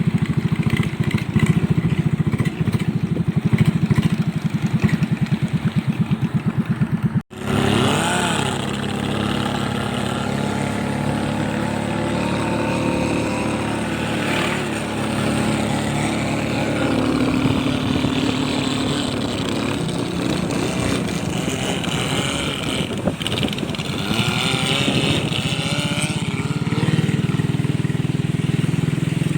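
Small boat's engine running steadily at speed. The sound breaks off abruptly about seven seconds in and picks straight up again.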